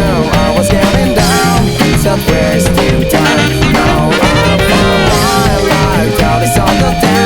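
Upbeat ska song played by a full band of drums, bass, guitar and alto and tenor saxophones, in a stretch without sung lyrics.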